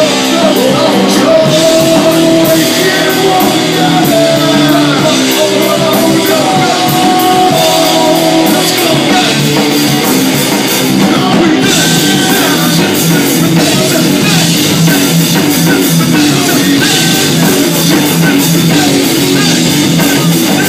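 Live rock band playing loud: electric guitar and drum kit, with a vocal line over them.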